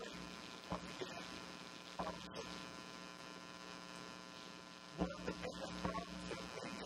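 Steady electrical mains hum, a buzz with many even overtones, with a few faint clicks. From about five seconds in, a low rumble and faint indistinct sounds join it.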